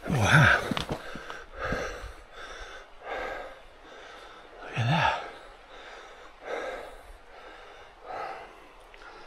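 A man breathing hard and gasping, a deep breath about every one and a half seconds, out of breath from climbing. The first gasp and one about five seconds in are voiced and loudest.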